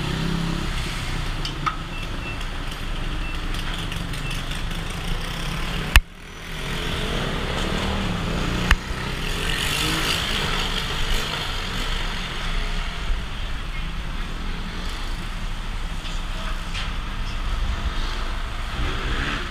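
Motorcycle ride: the engine runs under steady wind noise on the microphone, with a sharp click about six seconds in, a brief dip after it, and another click a few seconds later.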